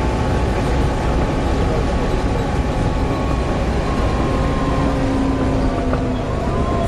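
Volvo B7TL double-decker bus running: a steady heavy rumble with thin whining tones over it that drift a little in pitch, the strange whining noise from its engine and cooling fan.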